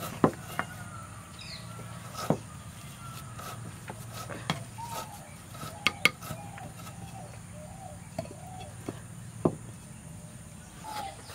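A spoon knocking against a clay bowl while mashed potato is scooped out, about six sharp knocks spread out, two of them close together midway. Birds chirp in the background.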